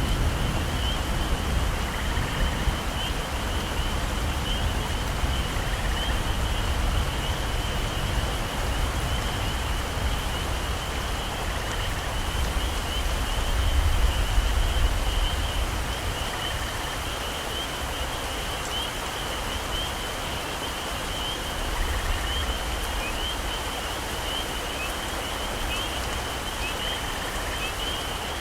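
Steady heavy rain falling on tropical forest foliage, with a low rumble of thunder that swells and then dies away about halfway through. A continuous high, even chirring of insects runs over the rain.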